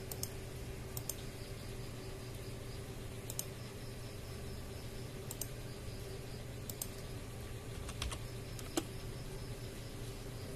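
Computer mouse clicking, mostly in quick pairs, every second or two, as points of a CAD sketch are placed. A steady low hum runs underneath.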